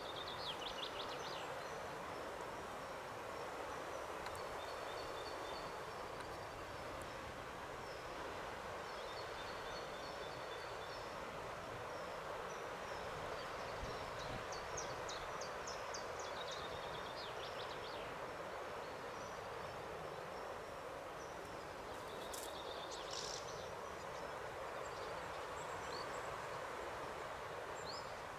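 Steady outdoor background hiss with songbirds singing: short high trilled phrases of rapid repeated notes about a second in, again in the middle and once more later, with scattered single chirps.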